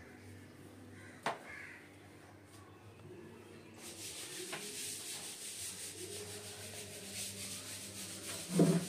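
Paint roller on an extension pole rolling primer, a steady wet rubbing hiss that starts about four seconds in as the roller is worked in the tray and up the wall. A brief louder sound comes just before the end.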